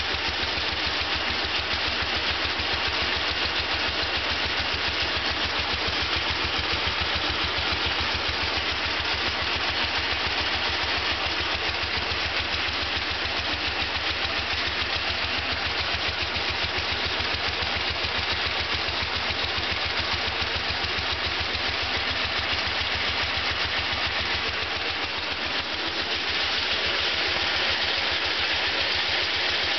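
Wheel Horse garden tractor engine running steadily with a fast, even beat, powering a Wheel Horse 06-ST4201 snowthrower on its test run, the auger turning. Near the end the sound gets a little louder and brighter.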